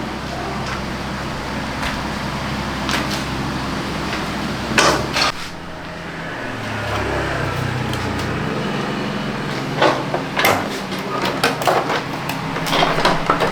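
Metal hand tools clinking and knocking on scooter parts during repair. A steady low mechanical hum runs for about five seconds and stops abruptly after a couple of knocks; a quicker run of metal clinks comes near the end.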